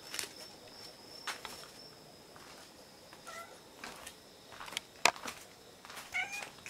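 A young cat meowing, two short calls: one about three seconds in and another near the end. Between them come several sharp clicks and knocks, the loudest about five seconds in.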